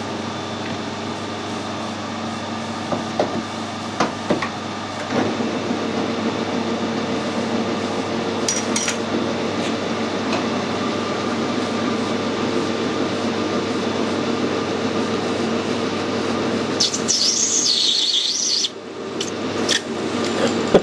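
Metal lathe running while a parting tool cuts off a brass bar: a steady machine hum under a dense rasping cutting noise, with a few sharp knocks early on. Near the end a brief high wavering sound, then the cutting noise drops away.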